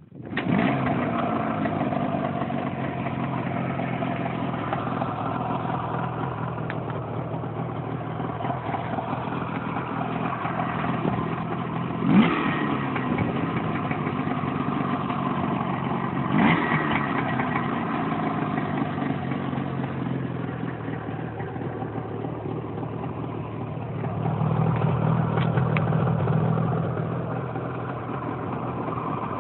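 IZh Jupiter 5's two-stroke twin-cylinder engine catches right at the start and idles evenly after a full overhaul, its exhaust heard through a distorting camera microphone. The throttle is blipped sharply twice in the middle, and the revs rise for a few seconds near the end.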